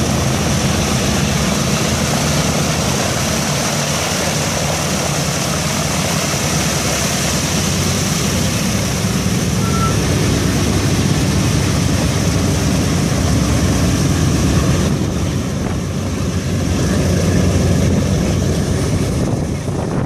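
A Boeing B-17 Flying Fortress's four Wright R-1820 Cyclone radial engines running steadily at taxi power as the bomber moves off, getting slightly louder about three quarters of the way through.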